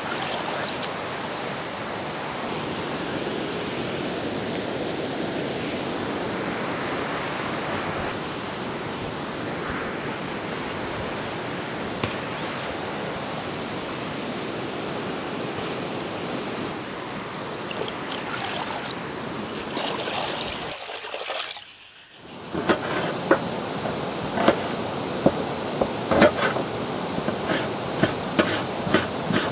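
Shallow river water running, with hands splashing in it as fish pieces are rinsed. After a brief drop about three quarters of the way through, a knife chops on an upturned aluminium tray in a run of sharp, irregular knocks, several a second.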